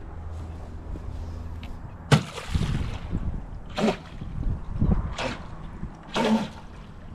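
UDI 022 Tylosaurus radio-controlled speedboat on the water. A sharp knock comes about two seconds in, then four short bursts of motor and hissing spray as it is throttled in spurts.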